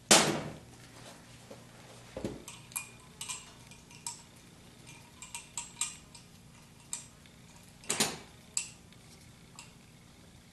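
Metal clinks and ticks of Allen wrenches being handled and set into the screw of the engine's timing pointer, with a sharp ringing clank at the very start and another about eight seconds in.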